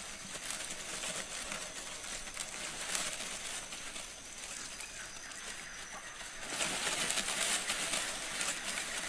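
Faint forest ambience: a steady high hiss with faint scattered ticks, swelling a little about six and a half seconds in.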